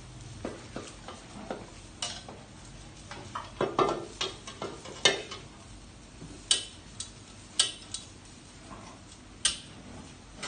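A metal ladle knocking and scraping against a steel wok: a run of sharp clanks, the loudest about halfway through, followed by a few single knocks spaced about a second apart.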